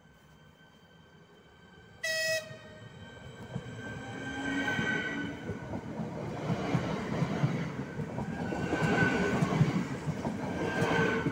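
ČD class 440 RegioPanter electric multiple unit sounding a short horn blast about two seconds in, then passing close by, with the wheel rumble and the whine of its electric drive building to their loudest near the end.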